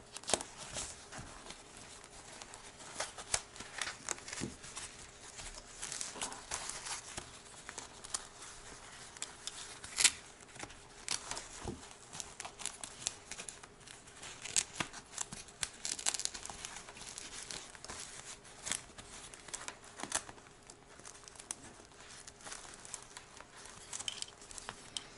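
Close handling noise from a fabric-covered foam helmet cheek pad and thin communicator wires being worked through it: irregular rustling and scraping with small clicks and taps, and one sharper tap about ten seconds in.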